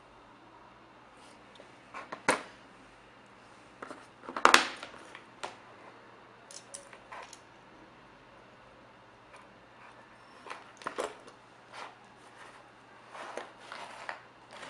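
Handling noise from a small plastic cartoon mobile phone and its earphone cable: scattered plastic clicks and rustles, the loudest about four and a half seconds in.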